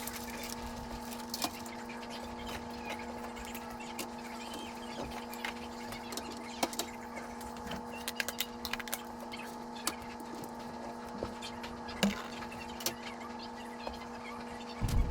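Scattered light clicks and knocks of containers and jars being handled and set down, over a steady electrical hum.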